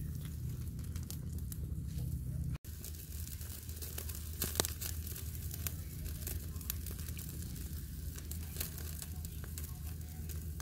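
Whole tilapia grilling over a fire: scattered crackles and pops over a steady low rumble. The sound drops out for an instant about two and a half seconds in.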